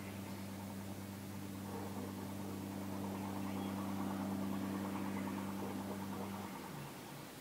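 A steady, low engine hum, idling, with a faint rattle over it, that cuts off abruptly about six and a half seconds in.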